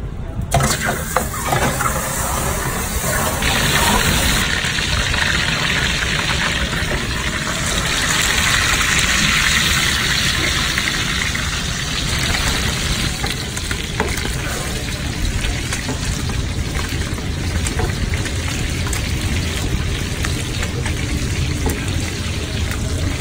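Beef steaks sizzling as they fry in a deep pan of bubbling melted butter.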